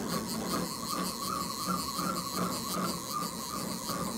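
Lathe-mill combo machine running: a steady mechanical whine over a low hum, warbling regularly about three times a second.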